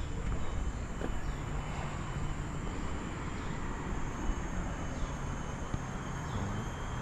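Outdoor ambience in tropical woodland: a steady low rumble under a faint, even high insect drone.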